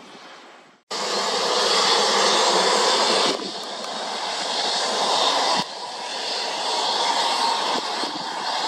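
Dassault Falcon 8X business jet's three turbofan engines running loud as it rolls along the runway after landing. The sound starts abruptly about a second in and drops a step in level twice.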